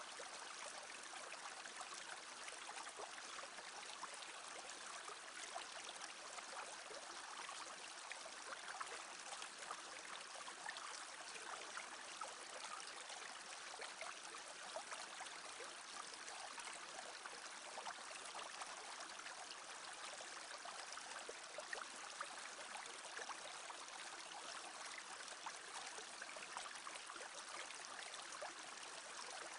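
Small brook babbling, a steady, even murmur of running water.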